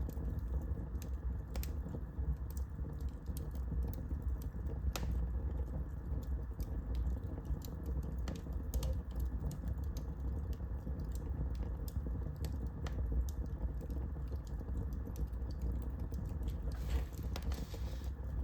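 Wood fire crackling, with irregular sharp pops and snaps over a steady low rumble of the flames, and a brief soft hiss near the end.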